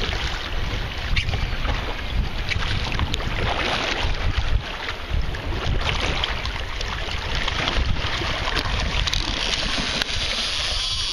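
Wind rumbling on the microphone over water sloshing and splashing beside the boat. About nine seconds in, a hooked shark thrashes at the surface and a rush of splashing spray rises.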